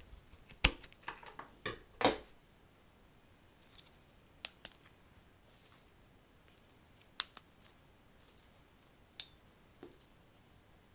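Scissors snipping through a rose stem, a quick run of sharp cuts in the first two seconds. After that, a few scattered light clicks as leaves are picked off the stem and the rose is set into a glass jar.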